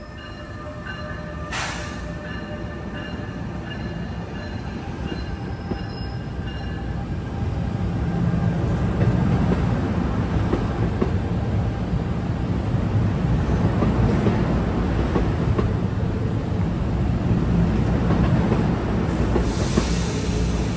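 A train running through the station, its low rumble building about a third of the way in and staying loud. Faint steady squealing tones are heard in the first few seconds, with a short sharp hiss about a second and a half in and another burst of hiss near the end.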